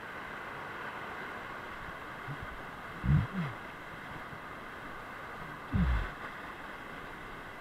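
River rapids rushing as a steady roar of whitewater. Two low thumps come close together about three seconds in, and another near six seconds.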